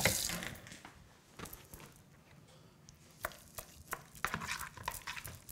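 A fork clicking and tapping against a glass mixing bowl in short, irregular strokes, starting about three seconds in, as spinach is stirred into a thick squash filling.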